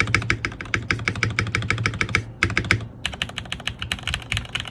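Fast typing on a mechanical keyboard with Gateron Milky Yellow Pro linear switches, a rapid even run of keystrokes broken by two short pauses about two and three seconds in.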